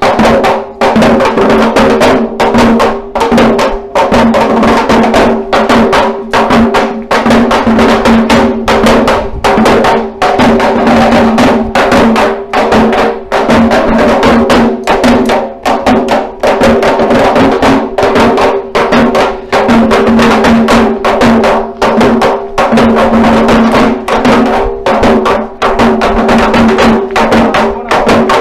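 Parai, the Tamil frame drum, beaten with sticks in a fast, loud, unbroken rhythm.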